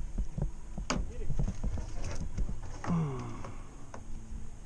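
Irregular low knocks and thumps, with a sharp click about a second in, as gear and feet bump on a boat; a short falling vocal sound from a man comes near three seconds in.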